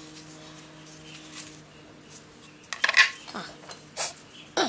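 Small metal engine parts clinking and knocking as they are handled and set down. The loudest cluster of clicks comes about three seconds in, with single clicks near four seconds and again at the end.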